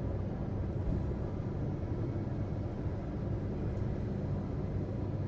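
Steady low rumble of a car moving at highway speed, tyres running on asphalt, heard from inside the car.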